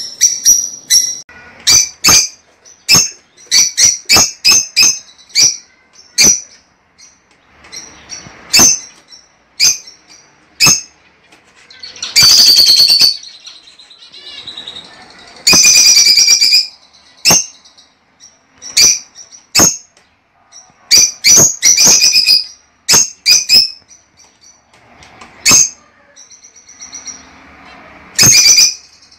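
Lovebirds calling: a string of short, sharp, high chirps at irregular intervals, with two longer, louder calls near the middle.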